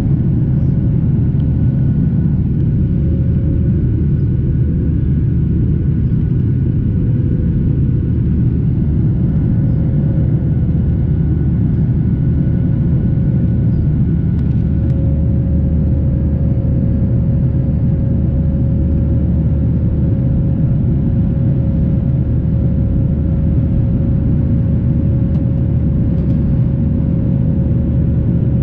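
Cabin noise of a Boeing 737 airliner climbing after takeoff: engines and rushing air make a loud, steady low rumble. A steady tone rides on it and rises slightly about halfway through.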